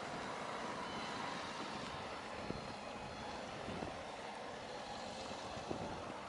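Steady wind-blown outdoor ambience with a faint distant hum, broken by a few soft knocks of wind against the microphone.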